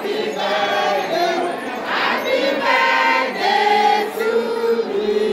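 A group of women singing together, holding and bending their notes.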